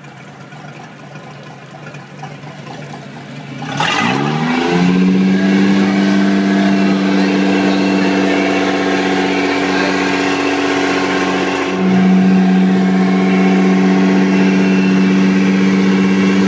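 1997 Crownline boat's engine being started: it catches about four seconds in, its pitch rising quickly and settling into a steady idle. The idle gets slightly louder about two-thirds of the way through.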